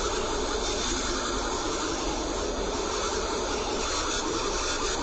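Steady hiss of static noise, even and unchanging, played in reverse.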